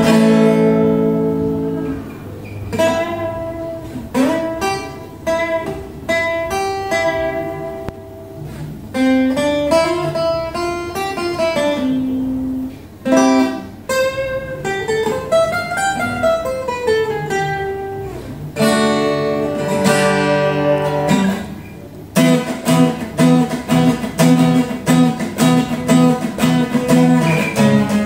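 Yamaha F310 acoustic guitar played fingerstyle: a chord rings and fades, then a picked melody runs up and down. About two-thirds of the way through it settles into a steady picked pattern of about two strokes a second.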